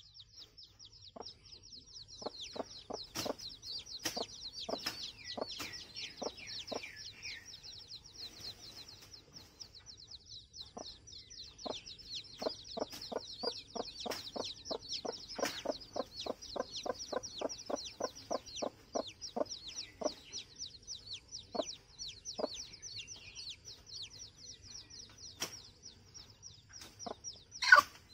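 A chicken clucking in short repeated clucks, fastest and most regular, about three a second, through the middle, over continuous high-pitched chirping. One loud sudden sound comes just before the end.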